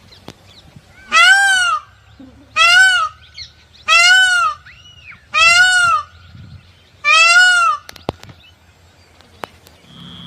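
Peacock (Indian peafowl) giving five loud, nasal honking calls in a row, each about two-thirds of a second long and arching up then down in pitch.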